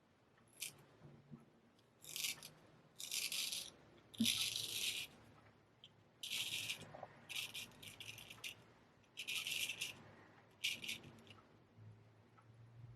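Straight razor scraping through lathered stubble in about nine short strokes, each half a second to a second long, with brief pauses between.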